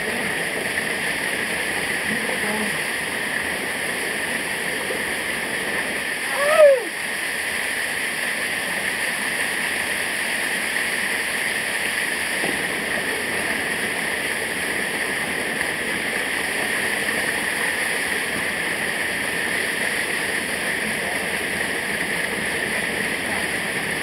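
Steady rush of a small waterfall cascading over rocks in a mountain stream. One short falling cry about six and a half seconds in.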